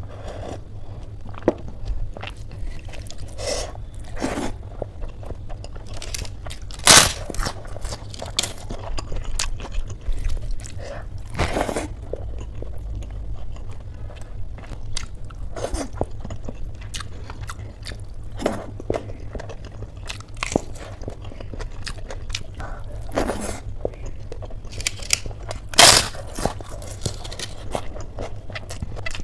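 Close-miked eating: a person chewing and crunching mouthfuls of rice with crisp fried strands and curry, eaten by hand, with frequent wet mouth clicks and smacks. Two louder sharp crunches come about 7 and 26 seconds in, over a steady low hum.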